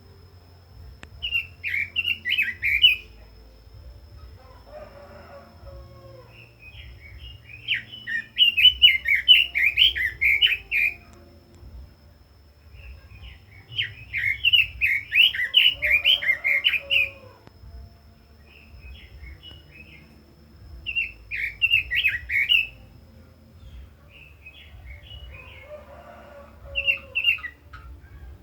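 Red-billed leiothrix singing: repeated bursts of rapid, high warbling, each a few seconds long with pauses between. Fainter, lower calls come in some of the pauses.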